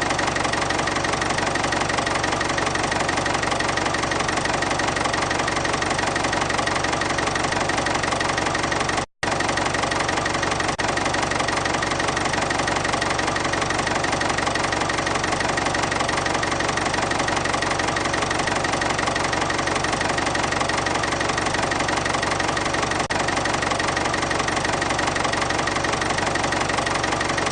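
Diesel engine of a Volvo EC240 BLC tracked excavator running steadily at idle, with a constant whine over the engine noise; the sound cuts out for a split second about nine seconds in.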